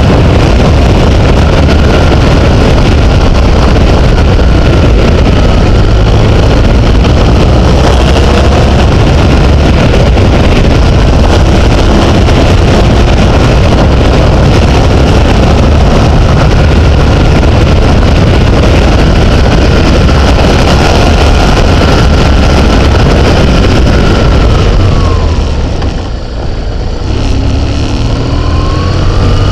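Heavy wind rumble and buffeting on an onboard camera's microphone during a fast descent on a mountain road. A faint whine runs underneath; it falls in pitch and the rumble eases as the vehicle slows a few seconds before the end, then the whine rises again.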